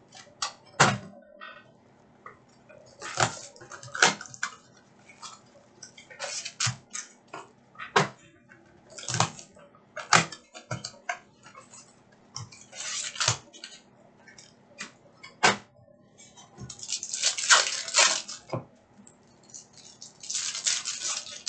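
Foil trading-card packs crinkling and tearing open by hand, among irregular knocks and taps of a cardboard box and packs being handled on a table. There are several longer bursts of crinkling.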